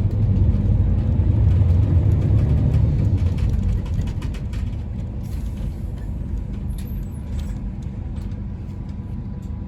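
A highway coach's diesel engine heard from inside the cabin, running harder for the first few seconds, then easing. Short rattles and knocks of the bus body come throughout as it jolts over a rutted, snow-packed road, and a brief air hiss comes about five seconds in.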